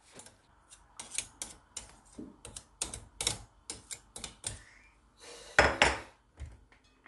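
Metal spoon scraping and tapping butter off a porcelain plate into a glass mixing bowl: a run of short clicks and scrapes, then a louder clatter about five and a half seconds in.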